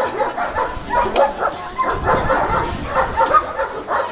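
Dogs barking, many short calls one after another.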